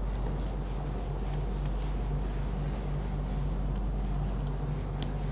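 Whiteboard eraser rubbing across a whiteboard in repeated wiping strokes, over a steady low hum.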